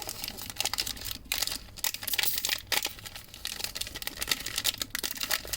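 Plastic trading-card pack wrapper crinkling as it is torn open and handled, with dense irregular crackling.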